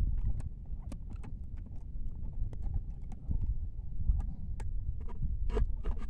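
Small irregular clicks and taps of a tin can and thin wooden sticks being handled and fitted together, with a cluster of louder clicks near the end, over a steady low rumble of wind on the microphone.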